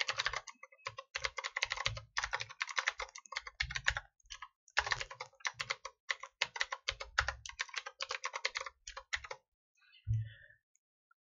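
Fast typing on a computer keyboard: quick runs of keystrokes broken by short pauses, which stop a couple of seconds before the end.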